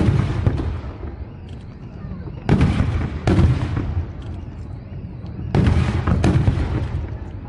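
Fireworks exploding: a booming burst at the start, then two pairs of bursts about three seconds apart, each fading away over about a second.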